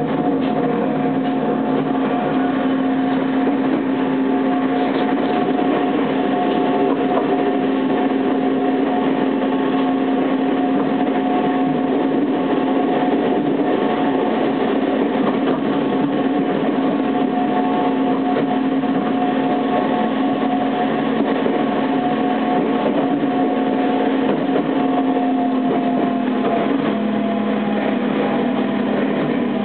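Electric mountain train running through a tunnel, heard from inside the front car: a steady motor whine over the rush of wheels on rails. The whine drops slightly in pitch near the end.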